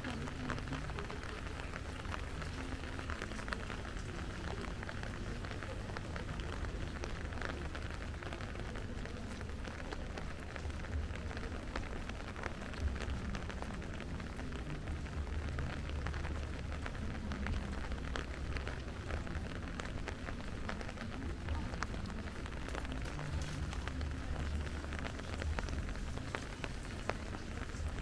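Steady rain falling, with many small drop ticks over an even hiss and a low steady rumble underneath.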